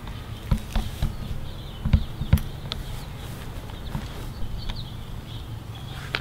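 Dull knocks and one sharp tap as long lengths of garage door weather strip are handled and shifted on a lawn, over a steady low hum, with faint chirps of birds or insects in the background.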